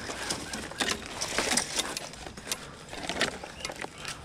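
Irregular clicking and rattling, like hard objects being handled or knocked together, with a dozen or so sharp ticks scattered unevenly.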